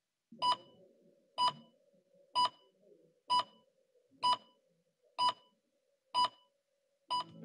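Countdown timer beeping: eight short, identical electronic beeps, one a second, as it counts down to zero. A faint steady hum sits underneath.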